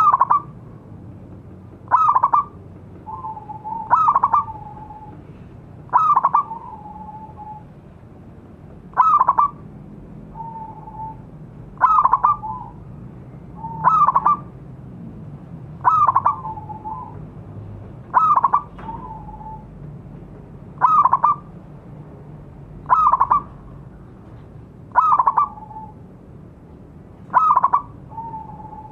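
Zebra dove (perkutut) cooing: the same short call, a quick burst of notes ending in a lower drawn-out coo, repeated about every two seconds.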